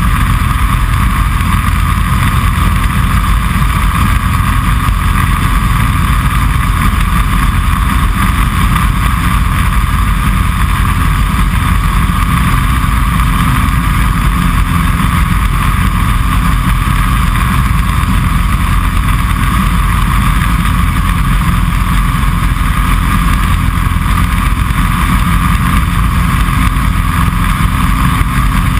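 Series 5 Kitfox light aircraft in flight, its engine and propeller running steadily with wind noise, heard loud from inside the open-framed cockpit.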